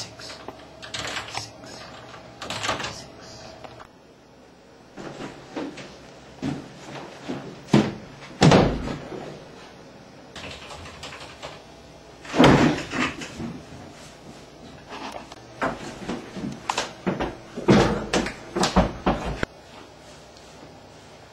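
Scattered knocks and bumps, with clusters of louder bangs about eight, twelve and eighteen seconds in.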